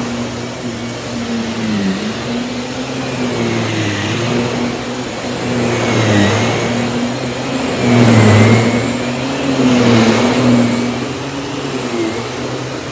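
Miele S194 stick vacuum running, a steady motor hum whose pitch dips and recovers about every two seconds, getting louder about two-thirds of the way through.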